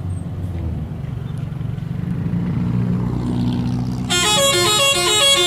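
A bus's engine rumble grows louder, then about four seconds in its 'telolet' multi-tone horn starts playing a fast tune of quickly alternating notes.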